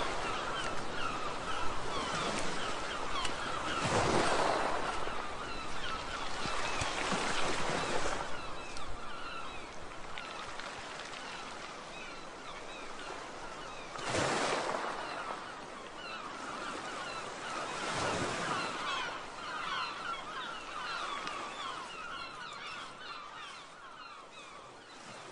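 Small waves washing onto a sandy beach, surging every few seconds, with a flock of birds chattering and calling throughout. The sound fades out near the end.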